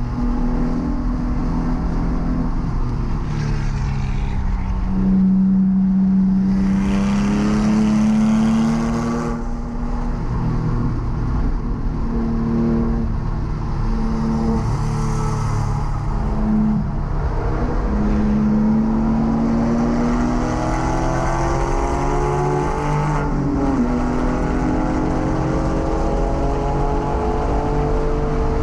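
Porsche 997's flat-six engine heard from inside the cabin under hard track driving. Its revs climb and fall again and again as it accelerates, shifts and slows for corners, with short rises and drops partway through, then a long climb, a sudden drop at a shift and another climb near the end.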